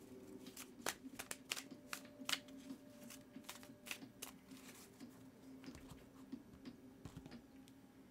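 A pocket-sized Light Seer's Tarot deck being shuffled by hand: soft, irregular card slaps and clicks, several a second, over a faint steady hum.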